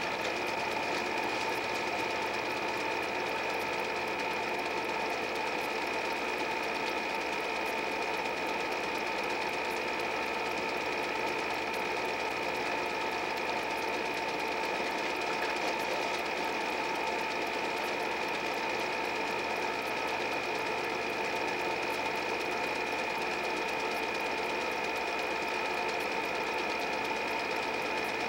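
8 mm movie projector running steadily: a fast, even mechanical clatter with a constant whine.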